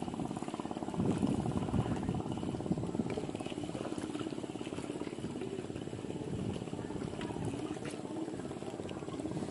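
Spinning reel being cranked to wind in line: a steady, even whirring from the reel's gears, a little louder about a second in.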